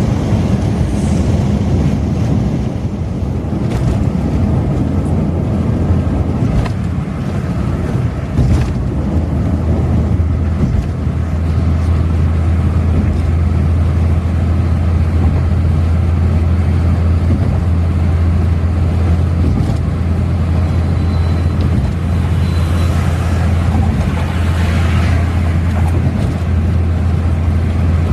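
Suzuki Karimun Kotak small car cruising on a highway: a steady low engine drone over continuous road and wind noise. The drone grows stronger about ten seconds in.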